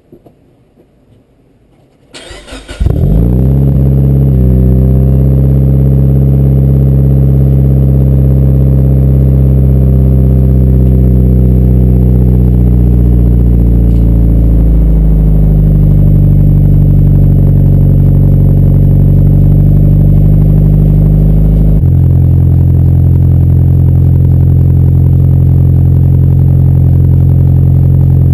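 Mitsubishi Lancer Evolution IX's turbocharged four-cylinder engine, through an AMS turbo-back exhaust heard right at the tailpipe, cranking briefly and catching about 2 to 3 seconds in, then idling loud and steady. The idle speed eases down over the following seconds and drops a step about 22 seconds in.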